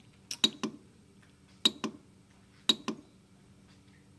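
Button clicks from the front keypad of a Kolver EDU 2AE/TOP/TA torque and angle controller, pressed three times about a second apart to scroll its menu. Each press is a quick double click.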